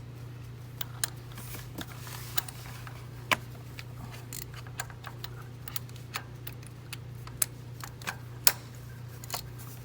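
Ratchet wrench on a flexible extension clicking and tapping against metal while working a spark plug in a Subaru engine bay, in irregular sharp clicks with a couple of louder knocks. A steady low hum runs underneath.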